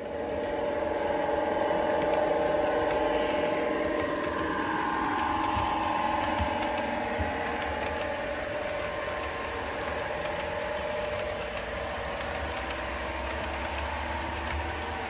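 OO gauge model diesel locomotive running past with its engine sound playing: a steady engine note with humming tones over the rolling of the wheels. It grows louder over the first two seconds as the train comes closer.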